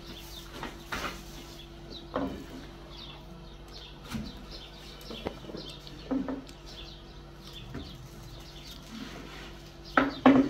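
Wooden rolling pin knocking on a flour-dusted wooden board as paper-thin flatbread dough is rolled out and lifted: a few scattered knocks, with two louder ones near the end. Small birds chirp faintly over a low steady hum.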